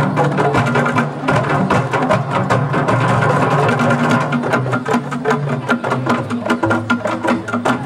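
Ensemble of struck bamboo tubes (kagang) and tall wooden tube drums playing together in a fast, even rhythm of many strikes a second, over low, pitched notes.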